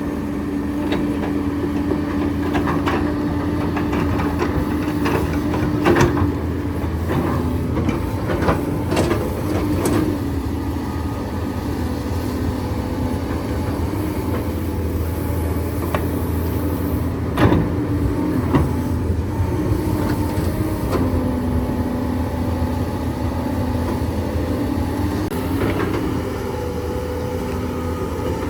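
Hydraulic excavator's diesel engine running steadily under working load, its pitch dropping for a few seconds past the middle and picking up again, with several sharp clanks and knocks of the bucket and limestone rock.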